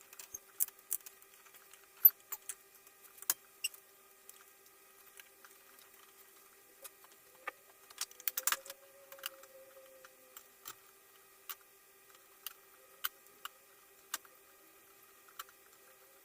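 Irregular sharp metallic clicks and taps of hand tools working at stripped screws on a small welding inverter's internal board. The clicks come one at a time at uneven gaps, the loudest about two seconds in, with a cluster around eight seconds.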